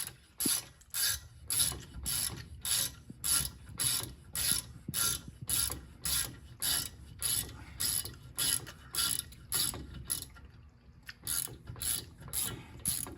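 Ratchet wrench with an H7 hex bit clicking steadily, about two clicks a second, as it backs out a brake caliper guide pin bolt; the clicking pauses briefly about ten seconds in, then resumes.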